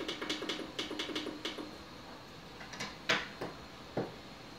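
Hot-air rework gun blowing with a faint steady hiss while it heats a stubborn chip that has a heat-sink pad under it. Over it, a quick run of light ticks in the first second and a half, then a few sharper clicks about three and four seconds in.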